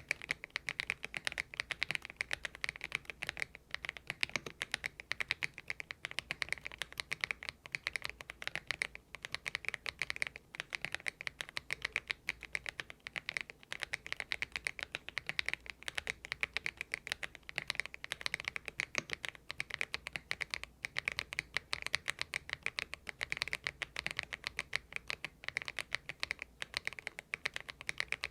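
Continuous fast typing on a Thinkway TV108 full-size mechanical keyboard with factory-stock, not hand-lubed, Kailh Box Aurora Ice Cream switches: a steady stream of keystrokes, many per second.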